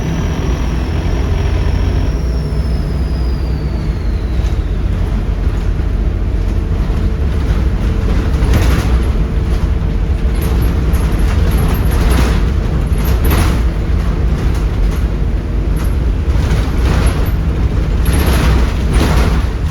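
Volvo B7RLE bus's 7.3-litre Volvo D7C diesel running under way, heard on board as a heavy low rumble throughout. A high turbo whistle falls steadily in pitch over the first four seconds and fades out. Short noisy bursts come and go through the second half.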